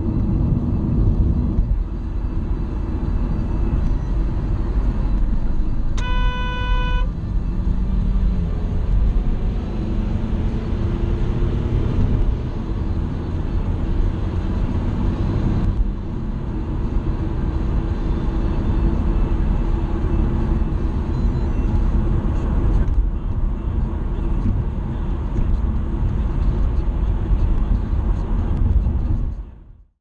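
A car horn sounds once, a single steady tone lasting about a second, as a warning honk at a truck cutting in. Under it runs the steady road and engine noise of a car driving, heard from inside the cabin.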